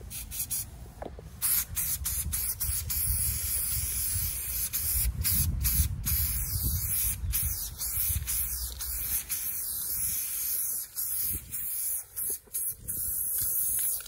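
Aerosol spray paint can spraying in long hissing bursts that start about a second and a half in, with short breaks that come more often near the end, over a low rumble.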